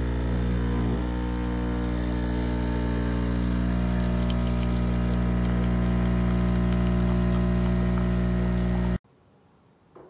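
De'Longhi Stilosa EC260 espresso machine's 15-bar pump humming steadily while it pulls a shot of espresso. The hum cuts off suddenly near the end.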